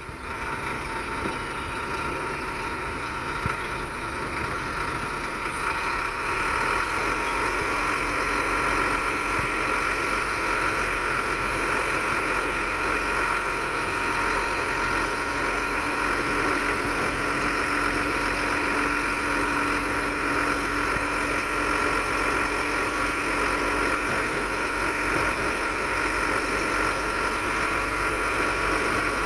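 Diesel engine of heavy earthmoving machinery running steadily, with a steady high whine over it.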